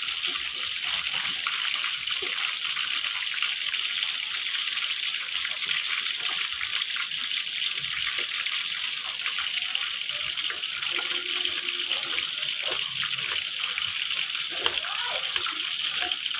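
Fish frying in hot oil: a steady sizzling hiss with scattered crackles and pops.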